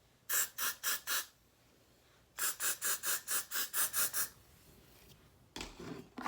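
Two runs of quick, short hissing strokes, about four or five a second: four strokes, a pause of about a second, then about eight more.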